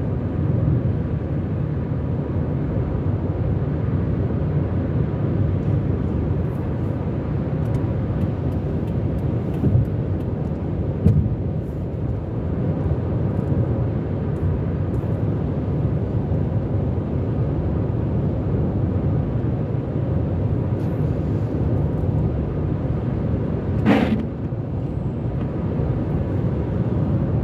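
Steady low road and engine rumble of a car driving on a motorway, with faint scattered ticks and one short knock near the end.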